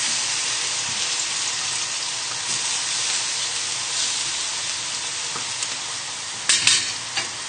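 Cod fillets and whitebait frying in hot oil: a steady sizzle, with a few sharp clicks near the end.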